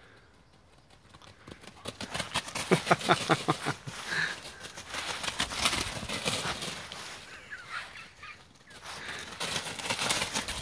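A dog galloping through dry fallen leaves, its paws rustling and thudding in a fast rhythm. The sound grows loud from about two seconds in as it runs up close and past.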